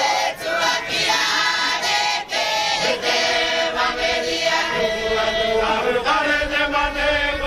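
A group of men and women singing together in chorus, with long held notes.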